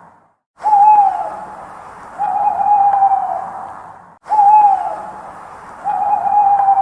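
An owl hooting: four hoots about a second and a half apart, each held on one note and then dropping in pitch at the end, with a fading tail after each.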